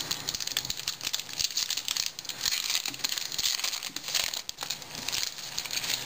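Foil wrapper of a 2010 Topps Series 1 baseball card pack being torn open and crinkled by hand: a continuous run of sharp crackling.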